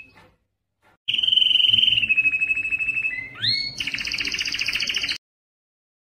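Canary singing: after about a second of quiet, a long run of rapid trills, each held on a steady pitch and stepping lower, then a quick rising note and a faster rattling trill that cuts off abruptly about five seconds in.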